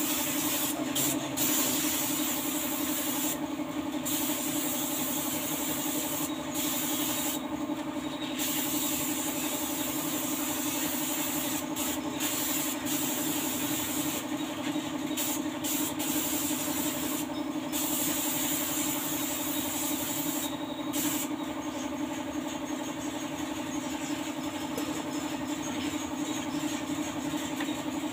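Air spray gun hissing as clear coat is sprayed, with several brief breaks where the trigger is let off between passes. A steady low hum runs underneath.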